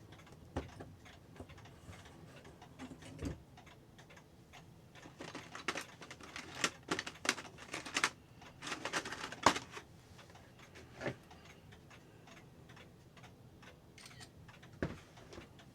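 Small metal clock parts and tools clicking and clinking as a clock movement is taken apart. Scattered single clicks, then a busy run of clicks in the middle, with the sharpest one about nine and a half seconds in.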